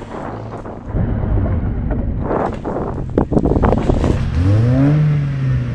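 Old hatchback's engine labouring off-road over rough, rutted mud, with several sharp knocks in the middle as the car bangs over the ground. Near the end the revs rise quickly and hold.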